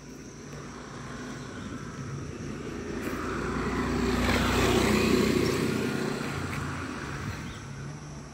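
A passing engine: a steady engine hum that grows louder for about five seconds, peaks, then fades away over the next three.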